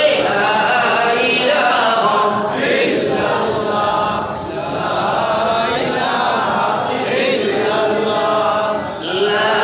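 A man's voice chanting in a drawn-out melodic tune through a microphone and PA, in long phrases with held notes and brief breaks between them.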